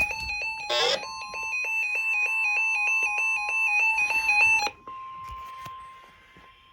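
Weather alert radio's alarm beeper sounding a fast, harsh, evenly pulsing beep, with a steady warning tone underneath that signals an incoming National Weather Service alert. The beeping cuts off about two-thirds of the way in, leaving the steady tone alone and fainter.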